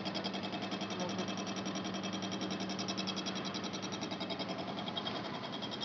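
Gantry milling machine running, its rotating cutter making a fast, even pulsing of about eight beats a second over a steady low hum.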